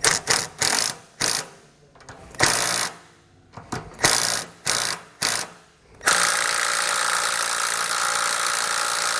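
Cordless power ratchet running a nut down onto a sway bar end link: a series of short, uneven bursts, then from about six seconds in a steady, continuous run lasting about four seconds.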